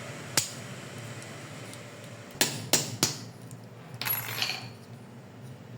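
Small tools and parts clicking and clinking while a Shimano Di2 hydraulic road shifter is taken apart. There is one sharp click, then three quick clicks about two seconds in, and a short scraping rattle about four seconds in.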